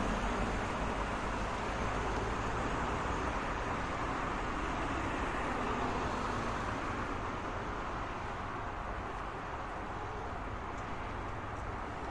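Road traffic: a steady wash of tyre and engine noise from passing cars, slowly easing off.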